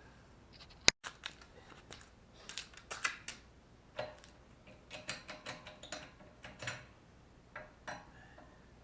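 Hand tools and metal parts clicking and clinking at irregular intervals, some knocks with a short metallic ring. There is one sharp click about a second in.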